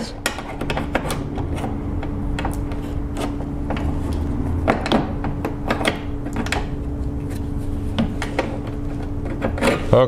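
Plastic C-pillar trim panel being worked loose by hand: scattered clicks and rubbing of plastic as a stuck retaining clip is worked at, over a steady low hum.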